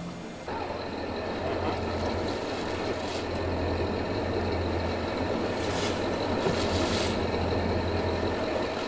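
A boat engine running steadily with a low hum, with short bursts of hiss about three, six and seven seconds in.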